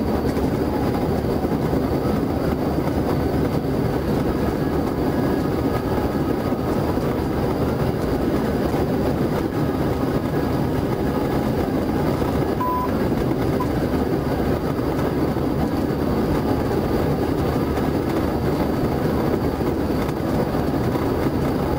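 Steady road, tyre and wind noise heard inside a patrol car driven at high speed on a highway, a low even rumble with no siren.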